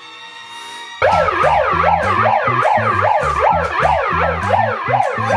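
Quiet background tones for about a second, then a sudden loud siren-style wail that sweeps rapidly up and down in pitch about twice a second, over a low pulsing beat.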